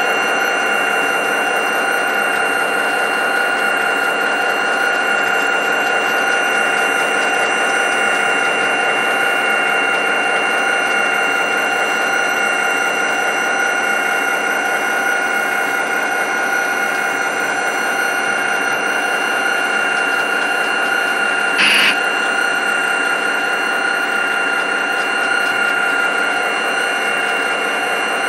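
Model train running: the steady whine of the locomotive motors and gearing over a continuous rattle of wheels on track, as model diesels pull coal hoppers. A brief sharper sound cuts in once, about 22 seconds in.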